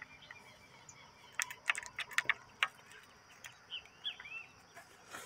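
A few short, curving bird chirps about three-quarters of the way through, over a steady high insect hum, with a quick run of sharp clicks about a second and a half in.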